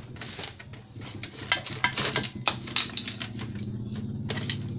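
A run of light clinks and knocks from small hard objects being handled, thickest in the middle, over a steady low hum that grows louder in the second half.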